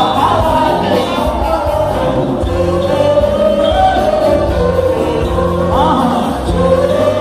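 Live band music with a singer: a sung melody carried over steady bass notes, playing without a break.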